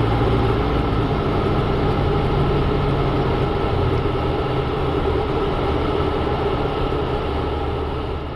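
Jodel D150 Mascaret light aircraft's piston engine and propeller running at low landing power with airflow noise, heard inside the cockpit as the plane lands; the drone eases off slightly near the end.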